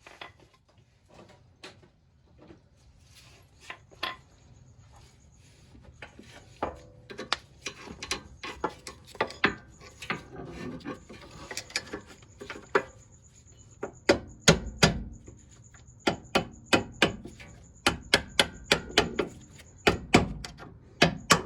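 Irregular metallic clicks and knocks of hand tools working the lower strut bolt, getting busier as it goes, with louder knocks about two thirds of the way in and again near the end.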